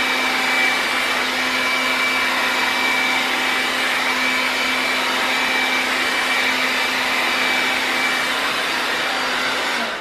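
Handheld hair dryer with a comb attachment running on high, a steady rush of air over a motor hum while blowing out braided hair. It is switched off near the end and its sound dies away.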